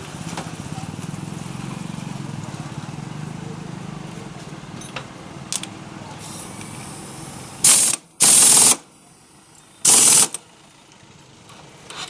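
Three short, loud bursts from a pneumatic workshop tool, about eight and ten seconds in, over a steady low hum.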